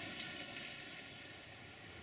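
Freight train hauled by a 060-DA (LDE2100) diesel locomotive receding. Its running noise, a hiss with a few steady tones, fades away over the two seconds.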